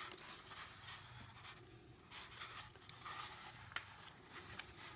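Faint rustling and rubbing of a paper strip being wrapped around and pressed onto a styrofoam wreath form, with a few light clicks and taps from handling.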